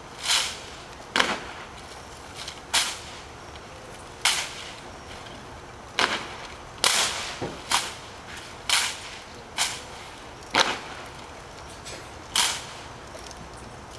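Sharp, irregularly spaced cracks, about a dozen, from a drill platoon's hands slapping M1 Garand rifles and heels striking the pavement.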